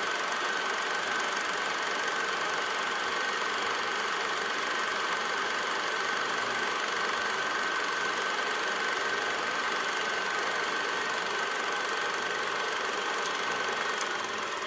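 Cinema film projector running steadily: an even mechanical whir with a constant high whine.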